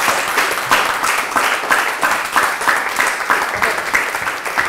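Audience applauding, the claps falling into a steady beat of about three a second.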